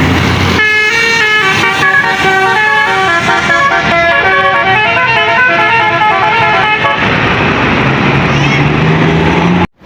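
A tour bus's 'basuri' musical horn playing a stepping melody of changing notes for about six seconds, starting about half a second in. Before and after it there is a loud noisy rumble, which cuts off suddenly near the end.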